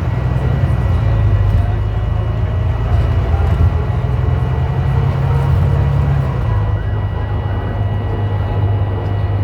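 Heard from inside the bus, a Volvo B9TL double-decker's diesel engine drones low while a constant high-pitched beep sounds steadily over it. The engine note drops about six seconds in. The beep resembles the door-open/handbrake-off warning on newer Wrightbuses, but the uploader puts it down to something loose, like a panel, at the back of the bus.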